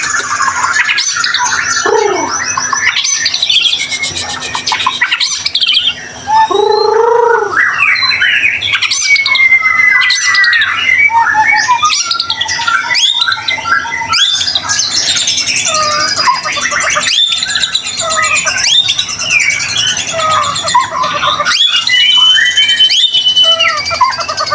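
White-rumped shama (murai batu) in full song: an unbroken, fast-changing run of clear whistles, sliding notes, trills and harsh rattling phrases. This is the busy, varied song of a bird in peak form, the kind played to other shamas to provoke them into singing.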